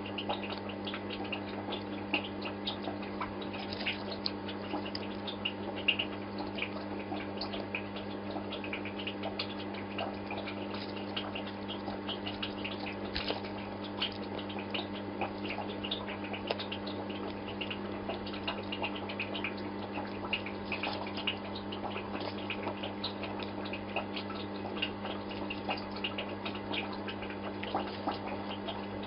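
Aquarium pump humming steadily, with water bubbling and dripping in many small, quick splashes.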